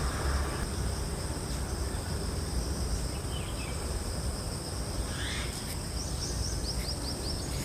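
Insects keep up a steady high-pitched drone over low background noise. A bird chirps briefly, then gives a quick run of short chirps about six seconds in.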